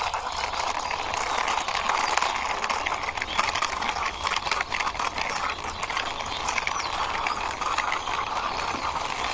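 Small plastic toy truck pushed along by hand: its wheels roll and rattle with a steady grinding noise full of little irregular clicks.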